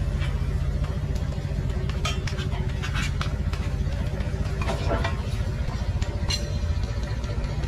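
Small excavator's engine running steadily, with several sharp knocks and clanks, one at about two seconds, one at three, one at five and one a little after six.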